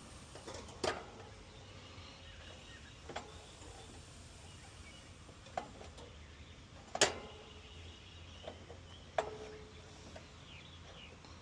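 A handful of short, sharp knocks and clicks, about five, the loudest about seven seconds in, over a low steady background hum.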